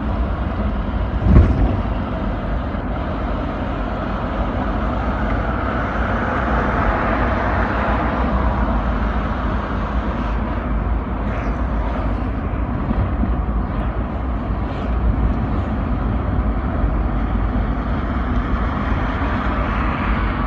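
A car driving along a city street, heard from inside the cabin: a steady rumble of engine and tyre noise, with a single thump about a second and a half in.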